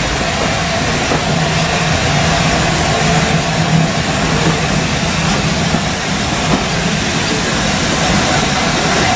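Heritage railway train in motion: a steady, continuous rumble of running gear that does not rise or fall.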